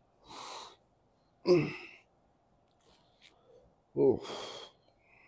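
A man breathing out hard three times: a breathy exhale just after the start, then two short voiced exhales falling in pitch, one about a second and a half in and one near the end. The last is followed by a longer hiss of breath.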